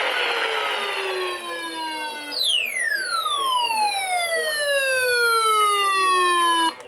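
Siren sounding in long falling sweeps: the pitch slides slowly down, jumps back up a little over two seconds in and falls again, then cuts off abruptly near the end.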